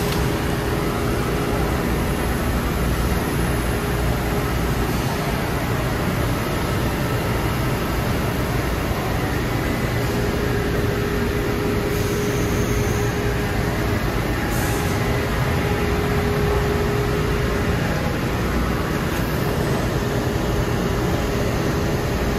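Steady drone of industrial machinery running under power, with a faint even hum tone running through it.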